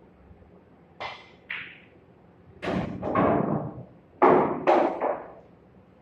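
Pool shot: the cue tip strikes the cue ball about a second in, and a ball-on-ball clack follows half a second later. Two longer, louder stretches of rolling and knocking follow as the pocketed ball runs down through the table's ball-return.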